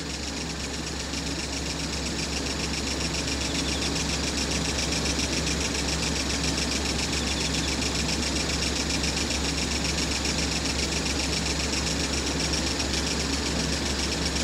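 Diesel engines of two stationary KiHa 40-series railcars idling, a steady low hum that grows slightly louder over the first few seconds.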